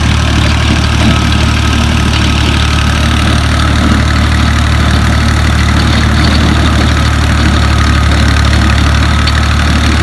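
Tractor diesel engine running steadily at an even speed, loud and unchanging.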